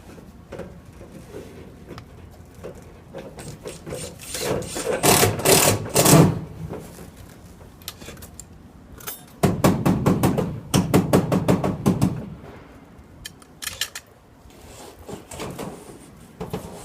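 Sheet-metal flashing work: a handheld power tool runs in two bursts of two to three seconds, each a fast rattle of strokes, with scattered light taps and knocks between them.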